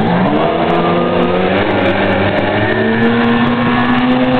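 Outboard motor on a small racing hydroplane running hard as the boat pulls away. Its pitch climbs slowly over the first few seconds, then holds steady.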